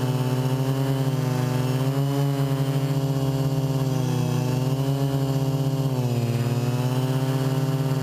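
Hexacopter's electric motors and propellers buzzing in flight, the pitch wavering up and down with the throttle and dipping briefly about six seconds in.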